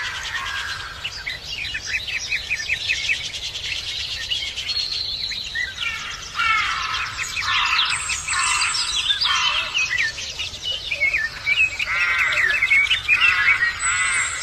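Many small birds chirping and twittering, with quick overlapping calls that grow busier and louder about halfway through.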